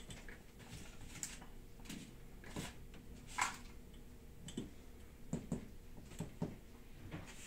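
Faint, scattered clicks and light knocks of hands handling a flat-panel TV and tapping around a workbench, with the clearest knock about three and a half seconds in and a few more near the end.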